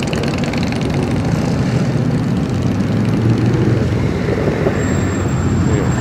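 Steady low rumble of vehicle engines in slow-moving street traffic, growing a little louder near the end.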